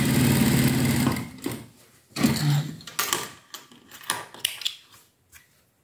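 Industrial sewing machine stitching at speed for about a second, then stopping. Fabric handling and a few small snips of scissors trimming the thread follow.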